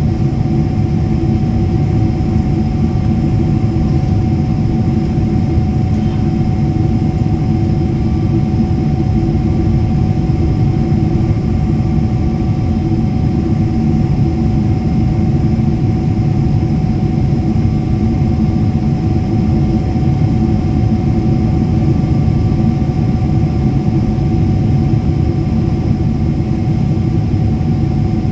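Steady drone inside a jet airliner's cabin in flight: engine noise and rushing air, with a faint steady whine on top.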